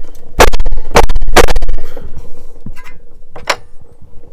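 A pointed steel tool being struck through a thin metal jar lid resting on a wooden block to punch holes. There are three hard, loud metallic hits in the first two seconds, then two lighter knocks as the block is handled.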